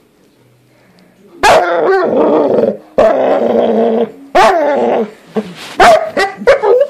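Dog vocalizing: after a moment of quiet, two long calls that waver in pitch, then a run of short barks.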